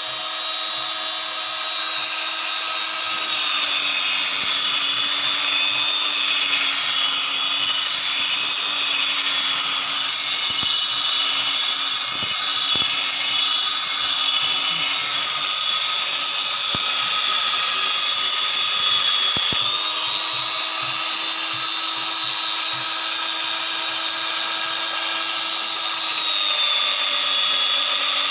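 Belt grinder running with a 36-inch abrasive belt, grinding a fuller into a steel blade: a steady machine whine over a gritty sanding hiss. The pitch drops slightly a few seconds in, comes back up about two-thirds through, and drops again near the end.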